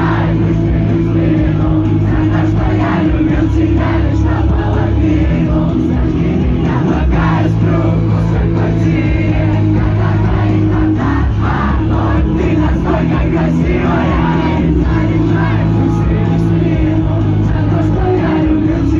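Live rock band playing a song at a concert, loud and unbroken, with the crowd singing along.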